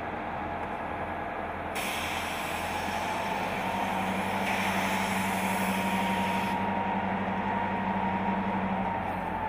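Norfolk Southern diesel locomotive running at low speed as it moves slowly through the yard. A long hiss of air from its air brakes starts sharply about two seconds in and cuts off after about five seconds. A steady hum joins the engine's drone midway.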